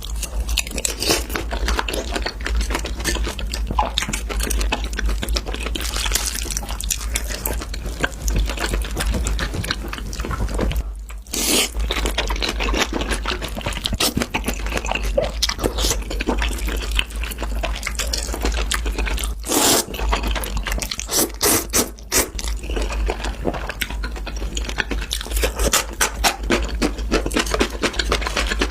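Close-miked eating sounds: wet chewing and smacking made of many quick clicks, with occasional crunches. A steady low hum runs underneath.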